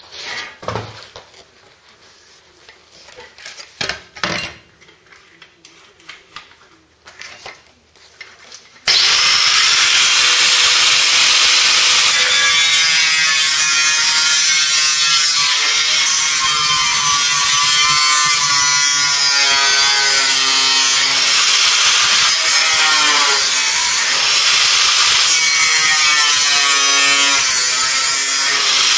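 A few knocks and clatters, then about nine seconds in a handheld power tool starts suddenly and runs loud and continuous against the car's steel bodywork, its pitch wandering up and down as the load changes.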